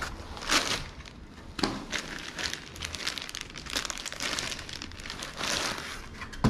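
Clear plastic bag crinkling and foam packing inserts rubbing and scraping as a new laptop is lifted out of its packing, with two louder crackles in the first two seconds.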